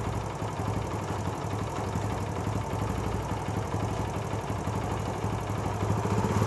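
A 70cc single-cylinder four-stroke motorcycle engine idling at low RPM with a steady, even beat. Its speed starts to climb near the end as the carburetor's idle screw is turned up.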